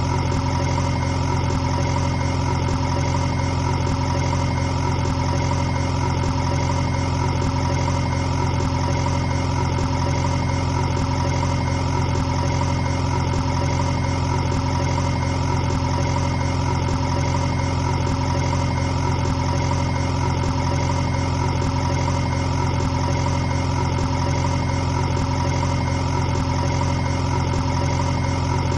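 A steady, unchanging engine-like drone, as of a small engine idling, with no rise or fall in speed.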